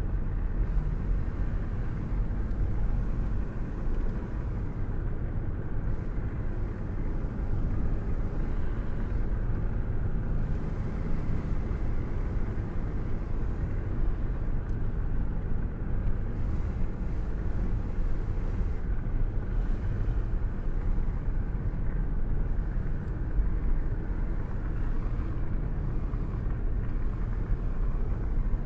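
A car cruising at a steady speed, heard through an open window: a continuous low rumble of road and wind noise that flutters slightly without changing pitch.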